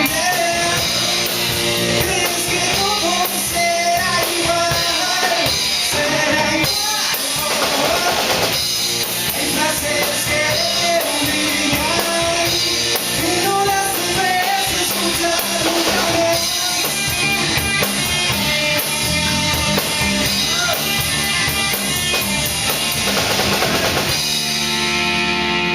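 Live band playing hip hop: electric guitar, bass and drum kit with a lead voice over them. About two seconds before the end the drums stop and a chord is held.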